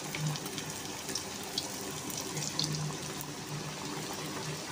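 Samosas frying in hot oil: a steady sizzle with scattered sharp crackles.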